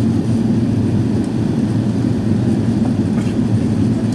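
Steady low roar of an Airbus A380 passenger cabin during the approach to landing: engine and airflow noise heard from inside the aircraft.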